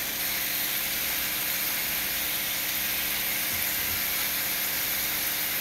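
Mutton snapper fillets with peppers and onions sizzling steadily in a frying pan over a high gas flame.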